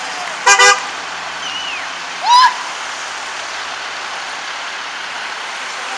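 Emergency vehicles' horn and siren: a short double horn blast about half a second in, then a brief rising siren whoop a little after two seconds, over a steady hiss of traffic on a wet road.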